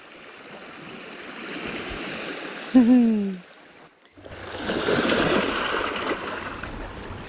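Small sea waves washing over a pebble shoreline, the wash swelling for a few seconds, falling away briefly, then surging back louder over the stones about four seconds in. A short falling voice sound cuts in about three seconds in.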